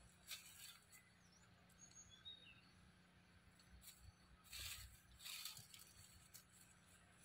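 Faint rustling of dry leaf litter as a monkey forages on the forest floor, once briefly near the start and again for about a second midway, with a few faint bird chirps.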